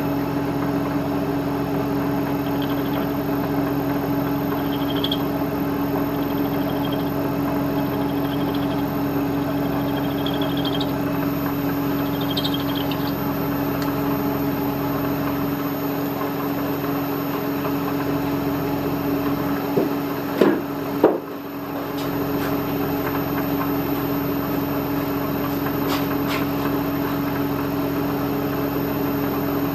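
Milling machine running with a steady hum, its four-flute end mill cutting into a hard broken stud. Faint, high, intermittent squeals of the cut come in the first half. A few short knocks and a brief dip in the sound come about twenty seconds in.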